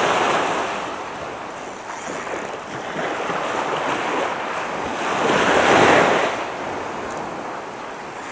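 Small waves washing up a sandy beach, in several surges that swell and fade, the biggest about two-thirds of the way through, with wind buffeting the microphone.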